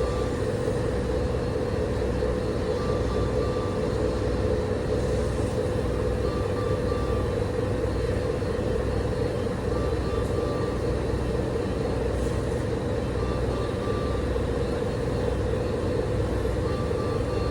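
Steady mechanical hum of hospital equipment, typical of a ventilator-care room. A short electronic beep repeats about every three and a half seconds, five times.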